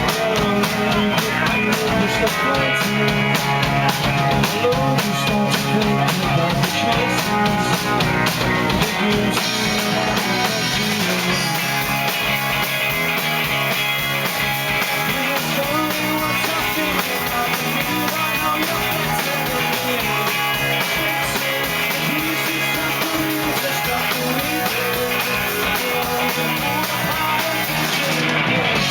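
British indie rock band playing live in a club: electric guitars, bass and a drum kit keeping a steady beat, the cymbals growing heavier about ten seconds in.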